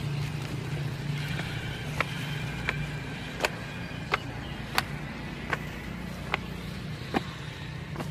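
Footsteps on brick paving and steps, one sharp step about every three-quarters of a second, over a steady low hum.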